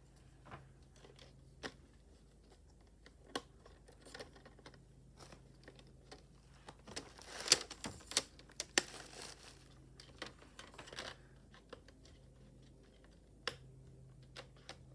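Plastic laptop case parts being handled and fitted together: scattered faint clicks and taps, with a busier stretch of rustling and clicking around the middle.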